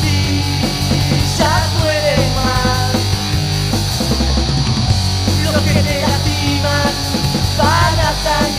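A rock band playing, in a punk-rock style, with electric guitar over bass and drums; the guitar plays bending, gliding lead lines.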